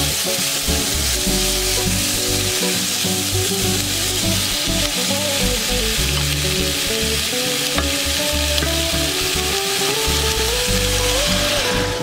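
Chunks of onion and carrot sizzling steadily as they fry in a pot, stirred with a wooden spatula. The sizzle cuts off suddenly at the end.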